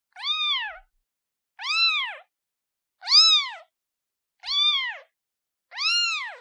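Kitten meowing five times at an even pace, about one call every second and a half. Each short call rises and falls in pitch: a kitten calling for its mother.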